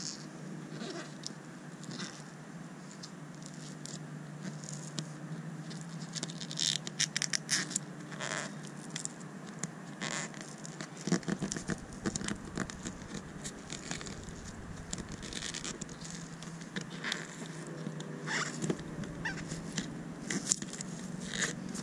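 Braided fishing line sawed back and forth behind a glued-on plastic boat emblem, cutting through its torch-softened adhesive tape with many irregular short, scratchy clicks.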